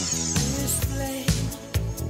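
Pop-funk music with a steady beat of about two drum hits a second and a high falling sweep near the start.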